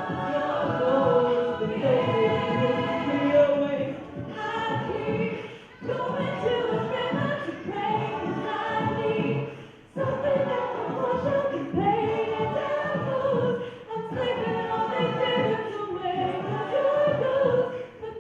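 An a cappella vocal group singing, several voices together without instruments, in phrases broken by short pauses every few seconds.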